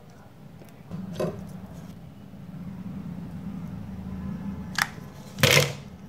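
Small plastic parts handled by hand as a glue-coated cable is pushed into a pen-cap sleeve: a short click about a second in, another near the five-second mark, and a louder clatter just before the end, over a low rumble of handling noise.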